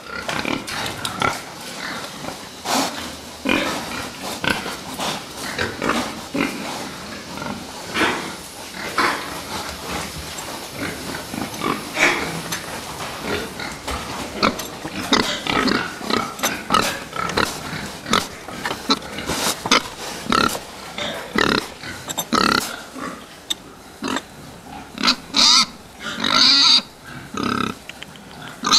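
Fattening pigs grunting and calling in a pen: a steady stream of many overlapping short calls, with several louder, shriller calls near the end.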